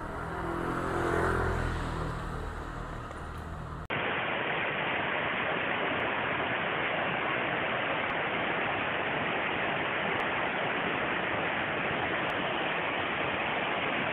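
A motorbike's engine passes close by, rising and then falling in pitch and loudness about a second in. About four seconds in the sound cuts abruptly to a steady, even rushing hiss of a waterfall.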